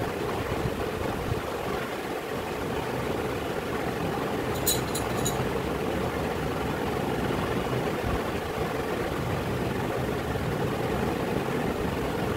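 Steady low mechanical hum, with three quick faint clicks about five seconds in.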